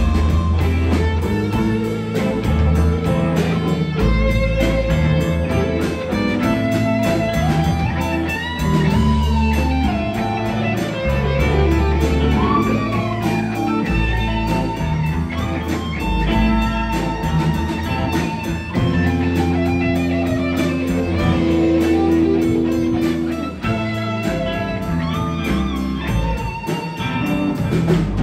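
Blues jam led by electric guitar, with lead lines full of string bends over a steady bass and backing.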